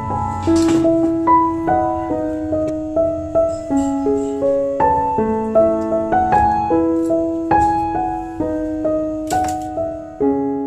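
Background piano music: a gentle, flowing melody of struck notes over held chords.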